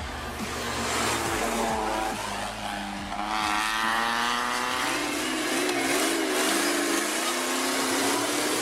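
Off-road vehicle engine revving: its pitch climbs, then wavers up and down as the throttle is worked.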